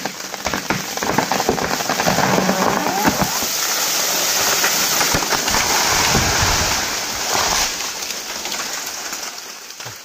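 A large tree, just cut through with a chainsaw, falling through the surrounding bamboo and brush: a long rush of crackling, snapping branches and rustling leaves. It builds over the first few seconds and dies away near the end.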